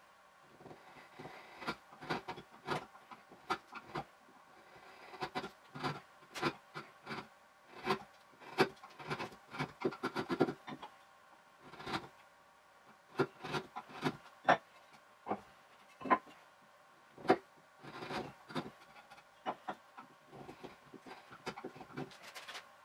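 Hand-held chisel paring the top of a wooden bench leg, heard as a quick, irregular run of short scraping cuts and clicks, sped up to four times normal speed.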